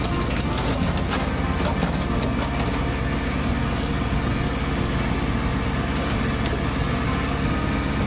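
Steady drone of a crab boat's engine and deck machinery while a loaded crab pot is hoisted aboard, mixed with wind and sea noise and a few faint knocks.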